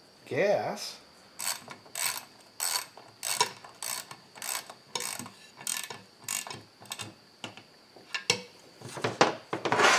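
Ratchet wrench clicking in a steady rhythm of about one and a half strokes a second, with a louder run of clicks and clatter near the end.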